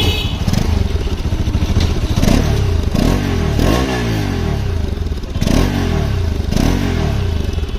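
Bajaj Pulsar RS200's single-cylinder engine idling and revved in about five short blips, with a rapid clattering knock ("khat khat khat") from inside the engine. The mechanic suspects something inside is catching or striking, possibly on the clutch side, which was worked on only a month earlier.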